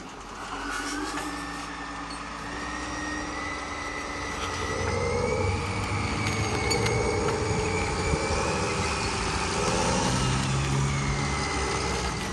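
Heavy vehicle engine running steadily, with a high whine that drifts slowly up and down; it grows a little louder a few seconds in.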